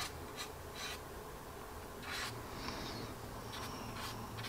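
Faint, light scratching and rubbing of hands and a small tool on a plastic scale-model fuselage while excess white glue is cleaned from the canopy edges, a few soft ticks scattered through.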